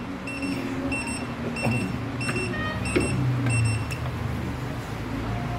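Heat press's digital controller beeping: its timer alarm signals the end of the pressing time. A rapid run of short, high beeps, about two a second, that stops about four seconds in.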